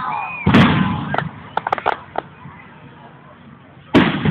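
Aerial fireworks bursting: a loud bang about half a second in, a quick run of sharp cracks about a second later, and another loud bang near the end.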